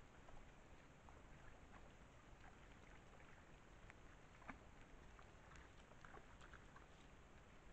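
Near silence: a trail camera's steady microphone hiss, with faint scattered clicks and ticks and one slightly louder click about four and a half seconds in.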